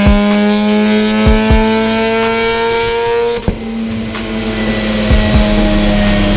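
Half-bridge-ported rotary engine of a turbocharged Mazda RX-7 FD running under load on a chassis dyno, its pitch rising steadily with a few sharp exhaust bangs. About three and a half seconds in the pitch drops off, and more loud backfires follow, shooting flame from the exhaust.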